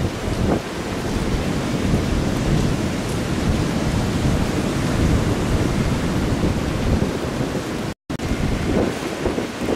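Heavy hurricane-driven surf breaking on the beach, a loud, steady roar mixed with wind buffeting the microphone. The sound cuts out for an instant about eight seconds in.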